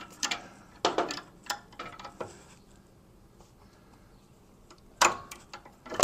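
Metal wrench clicks and clinks as a 17 mm crow's foot works loose the rear brake light switch on a Harley-Davidson Sportster. A few scattered clicks come in the first two seconds, then a quiet stretch, then a single louder metallic clank about five seconds in.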